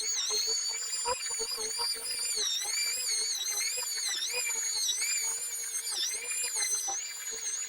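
Power sander running with a steady high whine that dips and wavers in pitch as it is pressed against the car's paint while it is colour sanded.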